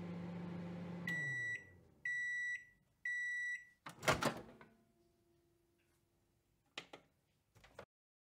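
Microwave oven sound effect: the running hum winds down and stops, then three beeps about a second apart signal that the timer has finished. A loud clunk of the door popping open follows, then two lighter clicks.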